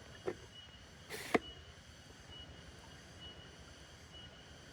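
A brief soft knock, then about a second in a short swish ending in a sharp click, over faint steady outdoor background with a thin high tone coming and going.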